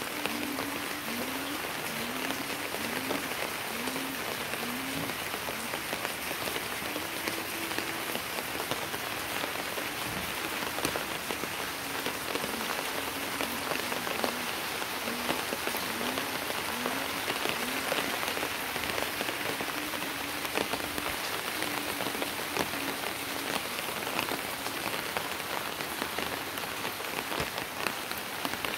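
Steady rain falling on a wet concrete rooftop and the leaves of potted plants, an even hiss throughout. Faintly underneath, a short low rising call repeats in runs, about one every second.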